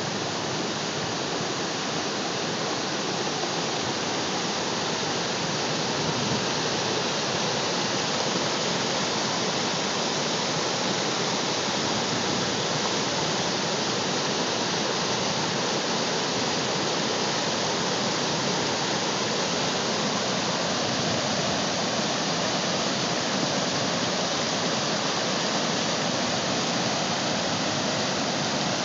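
Muddy floodwater rushing across a dirt road, a steady, unbroken noise of churning water.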